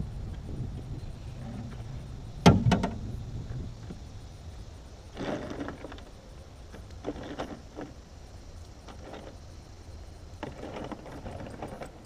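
Handling noises from a snakehead being put away in a plastic cooler on a boat: one loud sharp knock about two and a half seconds in, then scattered softer knocks, clatter and rustling.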